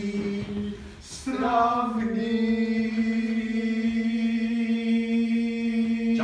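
A man's voice singing unaccompanied: a short held note, a breath about a second in, then one long, steady note held for about five seconds.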